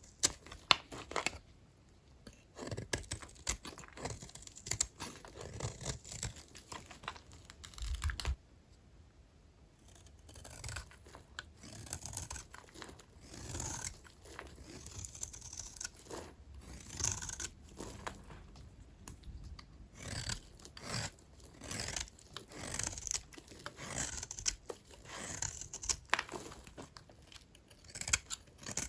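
Dry vintage hotel soap bars being cut with a blade: a run of crisp scraping and crackling strokes, with a pause of about two seconds about eight seconds in.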